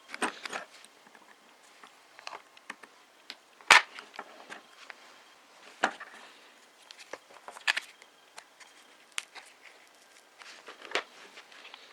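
Scattered small clicks and taps as a phone and pry tool are handled on a table while the LCD is prised out of the frame, the sharpest knock almost four seconds in.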